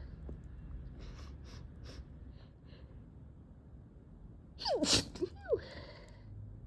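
A person sneezing from an allergy: a sudden loud sneeze with a falling voiced cry about five seconds in, then a shorter burst right after it. A few faint short sounds come first.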